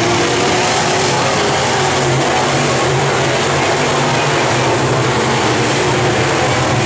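A field of dirt-track race cars racing together on a short dirt oval: many engines running hard at once in a steady, loud drone.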